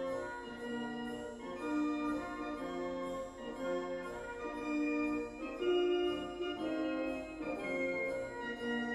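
Background instrumental music: slow, sustained chords that change every second or so.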